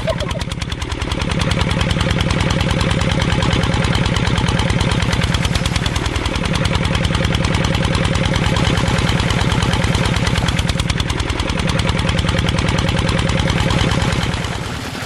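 Small diesel water-pump engine running steadily with a fast, even chug, dipping slightly in pitch about every five seconds.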